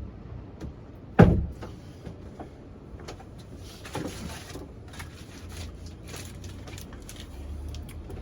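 Knocking and clattering of handling work in a van: one loud thump about a second in, then scattered lighter clicks and knocks with some rustling.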